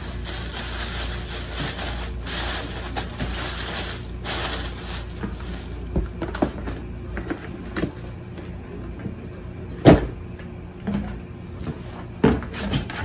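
A cardboard shoe box being handled: packaging rustles for the first few seconds, then scattered knocks and clicks as the box is moved and set down, with one loud thump about ten seconds in.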